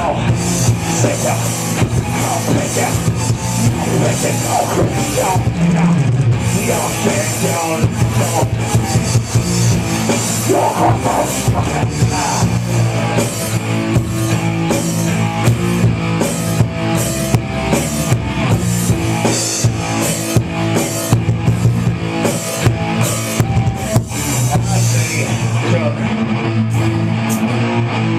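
Hard rock band playing an instrumental jam, with drum kit and guitar.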